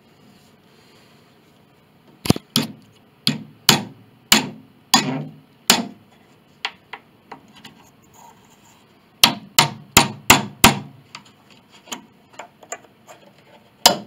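Hammer driving a chisel to cut through a wooden board on an antique grand piano: sharp, slightly ringing strikes in two runs of hard blows, about two a second, with lighter taps between them.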